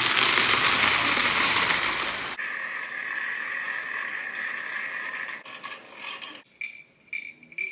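Toy dominoes toppling in a fast chain reaction, a loud dense clatter that cuts off abruptly about two and a half seconds in. After that comes a fainter, thinner sound from a domino video played back through a computer's speaker, ending in a few scattered clicks.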